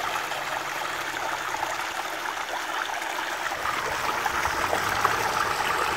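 Water from a spout pouring steadily into a small gold-washing sluice and splashing into the stream below.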